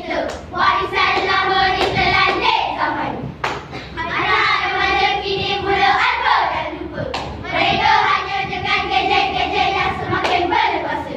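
A children's choral-speaking group (bicara berirama) chanting and singing in unison, with long held notes and a few sharp beats scattered through.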